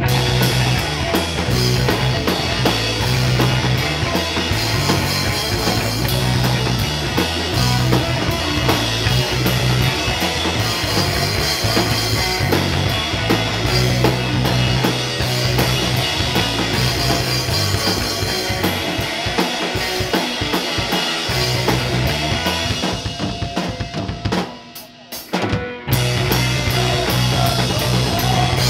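Instrumental rock jam on electric guitar, electric bass and a Mapex drum kit, with the drums to the fore. Near the end the band drops out for about a second, then comes back in.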